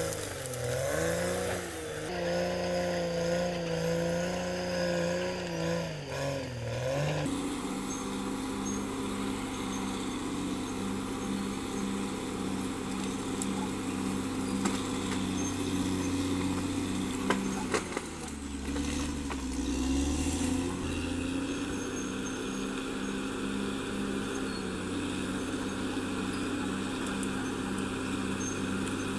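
Diesel engine of a CAT D6R XL crawler bulldozer working, its pitch swaying up and down with the load. About seven seconds in the sound changes abruptly to a steadier run with an even pulse about twice a second, a few sharp clicks, then the engine dips and picks up again.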